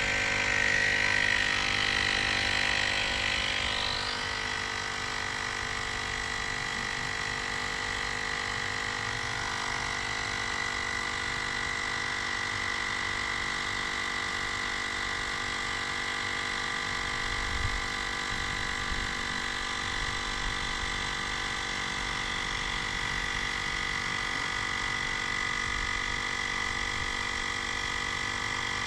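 Small electric tyre inflator running steadily with a constant motor whine while it pumps a bicycle tyre up toward 85 PSI to seat the bead.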